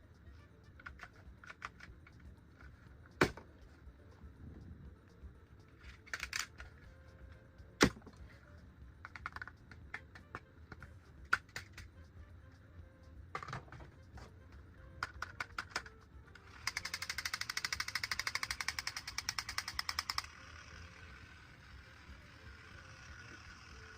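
Plastic toys and packaging being handled: scattered light clicks and taps, two sharper knocks, then a rapid clattering rattle lasting about three and a half seconds before it cuts off.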